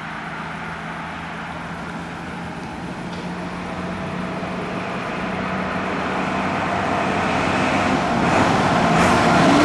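Fire engine driving up, its engine and tyre noise growing steadily louder as it approaches.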